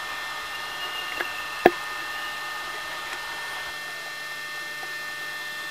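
A steady hum and hiss with a few faint steady tones, broken by one sharp click about a second and a half in.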